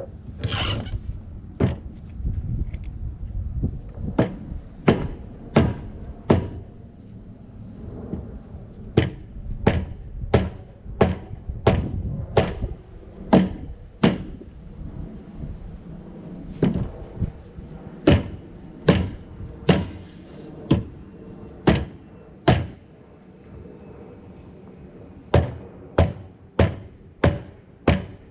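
Repeated hammer blows struck at a steady pace, about one and a half a second, in runs of six to eight strikes with short pauses between.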